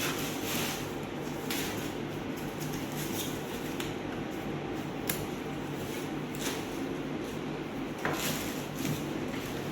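Packaging and a boxed appliance being handled during unboxing: a few scattered clicks and knocks, about five, over a steady background hum.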